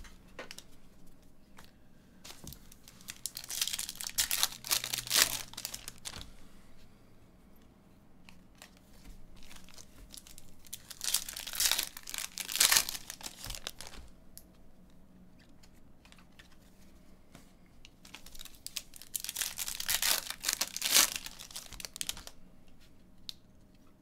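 Foil trading-card pack wrappers being torn open and crinkled by hand, in three bursts of tearing and crinkling about eight seconds apart.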